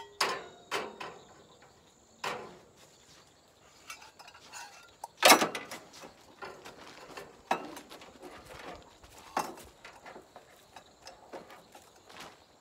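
Pans and a pot being handled and set down on a two-burner camp stove: an irregular series of clatters and knocks, the loudest about five seconds in.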